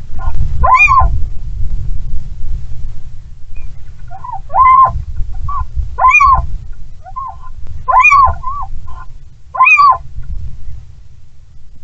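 Little owls calling: a series of short calls that rise and fall in pitch, one every second or two, some louder and some softer. A steady low rumble of strong wind runs underneath.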